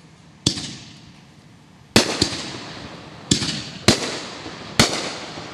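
Small aerial canister firework shell bursting with crackling and a colour break: a string of six sharp reports at uneven spacing, each trailing off in a fading crackle.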